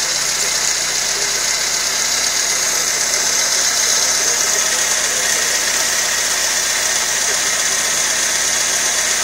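Fiat Tempra engine idling steadily, heard up close at its Weber carburettor, with a strong steady high hiss over the running.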